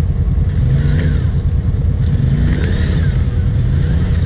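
Off-road vehicle engines: a steady low rumble of a quad's engine running at low revs. Engine pitch rises and falls twice, about a second in and again near the middle.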